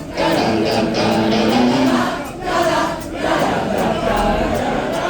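Concert audience singing a taught sing-along melody back together in phrases, with a guitar playing under it.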